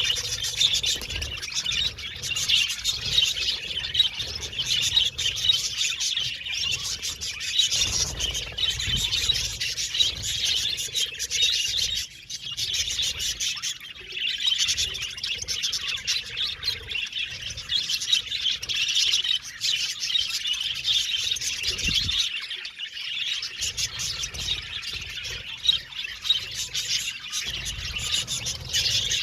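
A colony of budgerigars chattering and chirping continuously, many birds warbling and tweeting at once.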